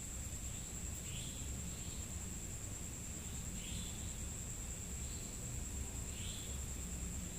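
Insects calling: a steady high-pitched trill, with a shorter chirping call repeating about once a second, over a low background rumble.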